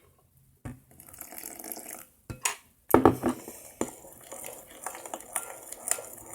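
Liquid borax activator pouring into a mixing bowl, with knocks and clinks of a spoon against the bowl.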